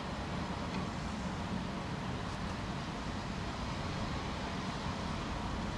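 Steady rumble of distant city traffic, with a faint hum running through it.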